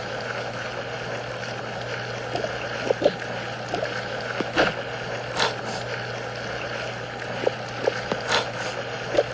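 Steady washing water of a bath sound effect, with a few short sharp sounds through it.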